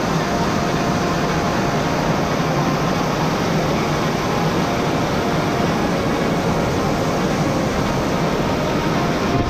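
Whitewater rushing over rock ledges in a shallow river rapid, heard close up as a loud, steady rush of water.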